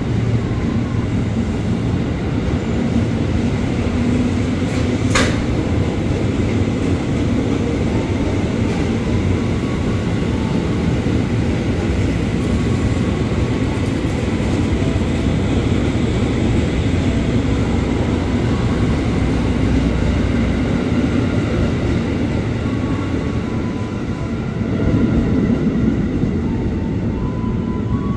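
JR 205-series electric commuter train rolling slowly along the platform: a steady rumble of wheels and traction equipment with faint motor tones. There is one sharp click about five seconds in.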